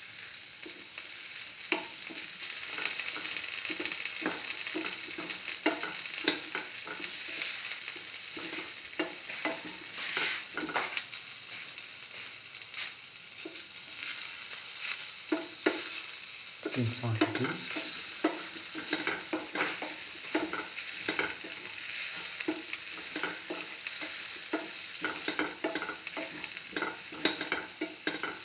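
Shallots, tomato and green chili sautéing in oil in a pan: a steady sizzle, with the spatula scraping and clicking against the pan over and over as the food is stirred.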